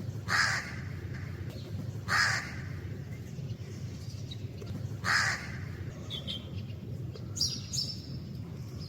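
Crow cawing: three harsh single caws spaced a couple of seconds apart. Fainter, higher chirps from another bird come in between about six and eight seconds, over a steady low background rumble.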